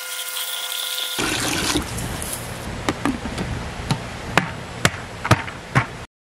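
Garden hose water splashing into a plastic bucket as it is refilled for another round of soaking. Then the bucket's plastic lid is pressed down onto the rim with a series of sharp snaps, about one every half second. The sound cuts off abruptly near the end.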